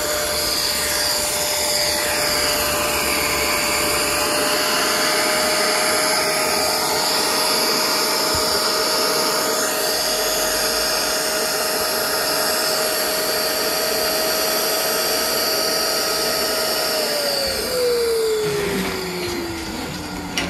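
Wet-and-dry vacuum running steadily, its hose sucking standing water out of a rusted steel boat compartment. Near the end its motor whine falls in pitch as it winds down.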